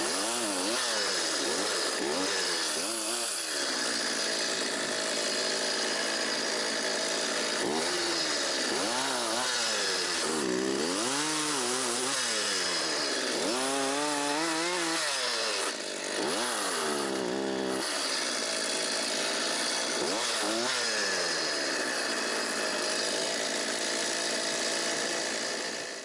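Petrol two-stroke chainsaw cutting up felled birch trees, running hard under load, its engine pitch repeatedly dropping and climbing again as it bogs in the wood and revs back up. It cuts off abruptly at the very end.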